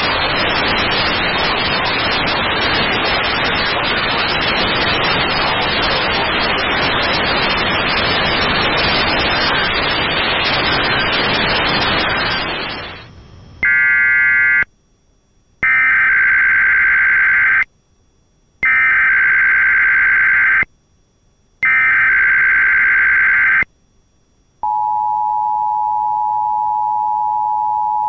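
Loud radio static hiss for about thirteen seconds, then an Emergency Alert System SAME header: four bursts of screeching digital data tones, the first short and the next three about two seconds each, with gaps of silence between them. About twenty-five seconds in, the steady two-tone EAS attention signal (853 and 960 Hz) starts and holds.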